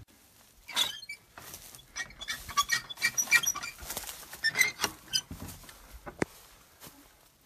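Metal latch on an old wooden door being worked by hand: a run of clicks, rattles and short squeaks, with one sharp click about six seconds in.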